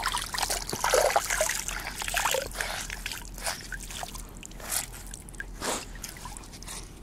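Water trickling and splashing as a wet cloth towel is dipped in pond water and lifted out, water running off it back into the pond. Busiest in the first few seconds, then thinning to a few scattered drips and small splashes.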